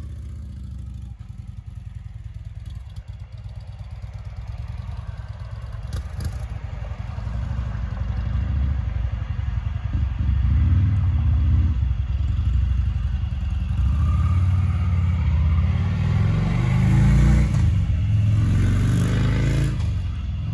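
Motorcycle engine running as the bike pulls away down a gravel drive. From about halfway through, a louder vehicle engine builds up, with the revs rising and falling near the end.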